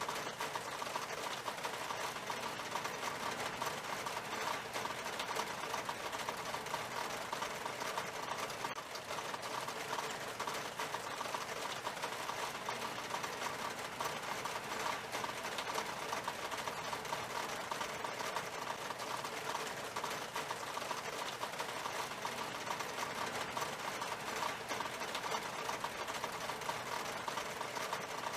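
Steady rain on window glass: a dense, even patter of many small drops ticking on the pane.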